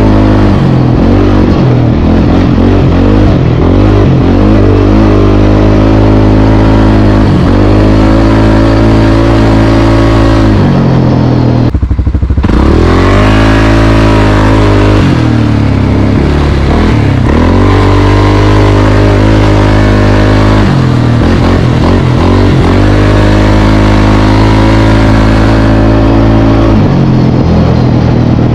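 2022 CFMoto CForce 600 ATV's single-cylinder engine running under load along a dirt trail, its note falling and rising with the throttle. About twelve seconds in, the engine drops away as the rider eases off and slows, then climbs steadily back up as the ATV accelerates through its CVT, which is fitted with an RNG Performance primary clutch kit and helix.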